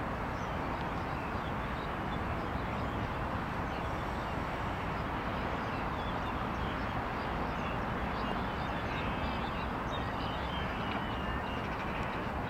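Steady outdoor background noise, a low rumble and hiss, with faint short chirps higher up that become more frequent in the second half.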